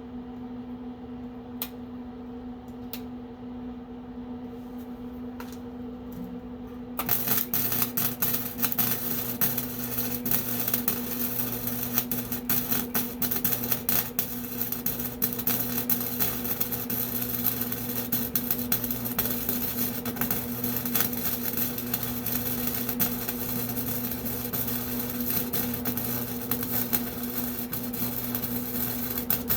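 Electric arc welding: after a few seconds of steady electrical hum and a few clicks, the arc strikes about seven seconds in and crackles and sputters continuously, a dense run of rapid sharp ticks, over the steady hum.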